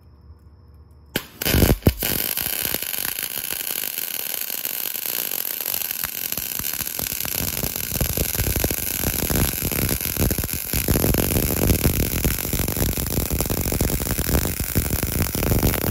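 MIG welding arc crackling steadily as a bead is run on a steel motorcycle frame mount. The arc strikes about a second in, stutters once, then burns continuously.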